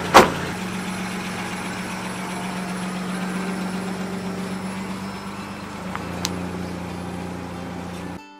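Mitsubishi Pajero 3.5-litre 24-valve V6 running: the driver's door slams shut just after the start, then the engine runs steadily as the 4x4 pulls away, its sound slowly getting quieter.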